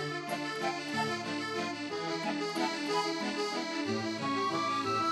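Instrumental background music: a melody played over a moving bass line.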